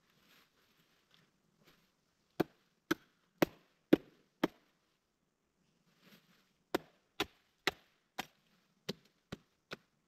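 Wood being chopped: sharp blows, five about two a second, a short pause, then seven more.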